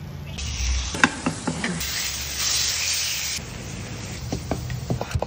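Food frying in a hot pan: a steady sizzle that cuts off suddenly about three and a half seconds in, with scattered sharp clicks and knocks of metal tongs and utensils against the pan.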